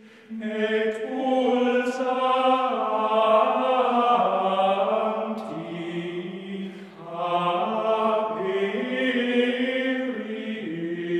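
Soundtrack music of chanting voices holding long, slow notes that step from pitch to pitch, easing off briefly about seven seconds in and then resuming.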